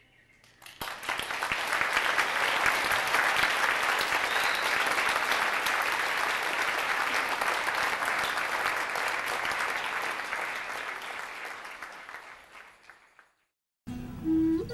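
Audience applauding: the clapping breaks out about a second in, holds steady, and slowly dies away near the end.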